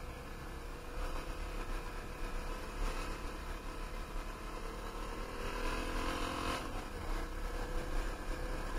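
Dirt bike's engine running under way on a gravel road, heard from the bike with steady wind and road rumble. Its note rises between about four and six and a half seconds in as the bike speeds up, then breaks off abruptly.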